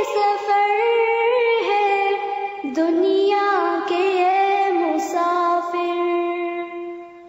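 Background music: a slow melody in a high singing voice, with long held notes that glide between pitches, fading out near the end.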